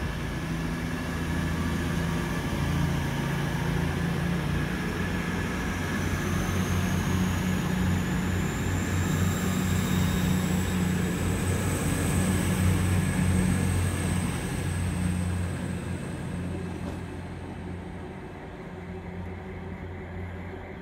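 Diesel train running at a station, its engine note steady and low. The sound grows louder to a peak about two-thirds of the way through, then fades. A high whine rises in pitch from about a quarter of the way in and dies away near the end.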